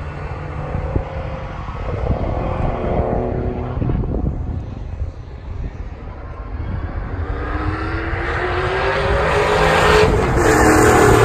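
Racing car engines at high revs along the straight, one car growing louder with a rising engine note as it approaches, loudest as it passes close near the end.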